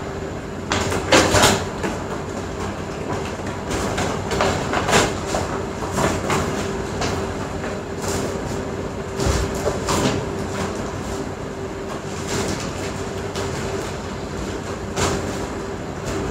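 Irregular clicks and rustles of small objects being handled, about a dozen over the stretch, over a steady low hum.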